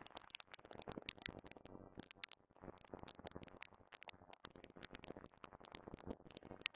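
Clicks and crackle pulled out of an electric piano recording by a de-click plug-in, heard soloed: a dense, irregular stream of faint sharp clicks.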